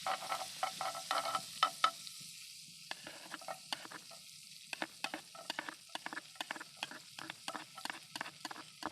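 Food sizzling in a hot frying pan, with a spatula stirring and tapping against the pan. The taps come in a quick, fairly regular run in the second half.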